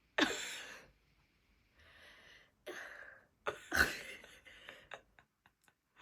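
A person's breathing: several short, sharp breaths, the loudest about four seconds in, then a few faint clicks near the end.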